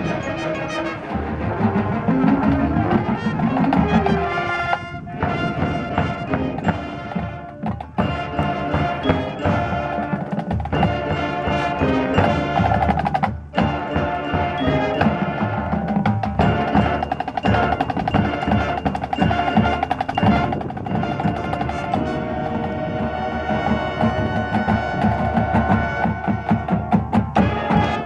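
High school marching band playing its field show: full ensemble over drums and mallet percussion, with several sharp accented hits and brief cut-offs.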